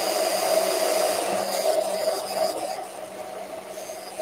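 Braun immersion (stick) blender running steadily in a tall plastic jug of liquid, dropping noticeably in level a little under three seconds in.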